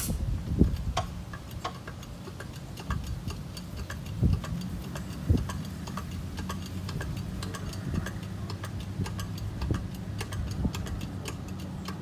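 Single-cylinder diesel engine of a two-wheel tractor idling steadily, with fast light ticking over the hum and a few dull knocks in the first half.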